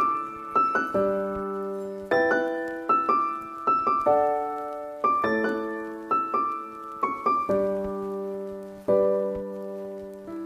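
Background piano music: a slow melody of single struck notes and chords, each note dying away, a new one every half second or so.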